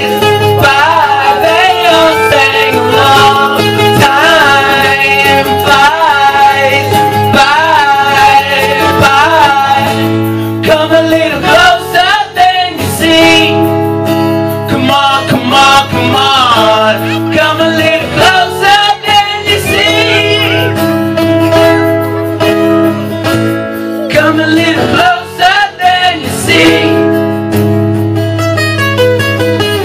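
A live acoustic rock band playing: strummed acoustic guitar under a male lead singer's wavering, drawn-out vocals.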